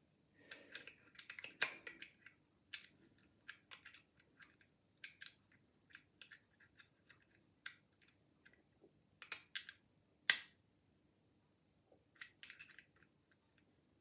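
Faint, irregular metallic clicks and ticks from a lock pick lifting the levers of a Legge 5-lever mortice sashlock under a bent-nail tension tool, with one sharper click about ten seconds in.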